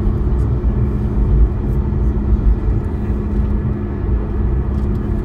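Boeing 737 MAX 8's CFM LEAP-1B engines running at low taxi power, heard inside the cabin over the wing as a steady hum over a low rumble from the airliner rolling along the runway.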